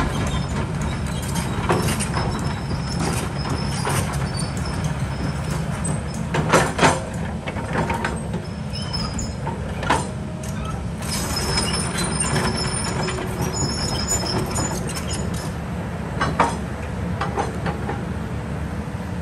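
Kobelco excavator's diesel engine running steadily under load, with knocks and clanks as it works rocks. The loudest are a close pair about six and a half seconds in and another about sixteen seconds in.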